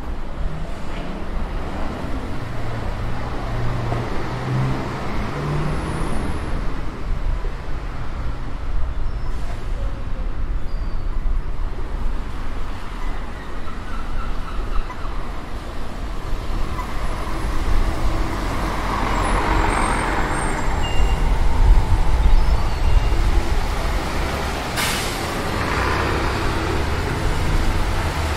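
Road traffic: engines and tyres of passing cars and buses, a steady low rumble that swells in the second half as a double-decker bus comes close. A short, sharp hiss near the end, typical of a bus's air brakes.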